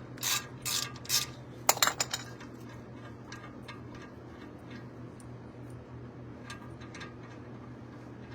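Metal hand tools clicking and clinking on a brake caliper bolt as it is worked loose: a few sharp clinks in the first two seconds, one with a short metallic ring, then a few faint ticks.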